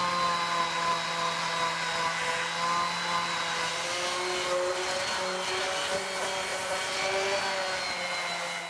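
Electric random orbital sander running steadily against a plywood edge, its motor pitch wavering slightly as it is pressed and moved along the wood, over a hiss of abrasion.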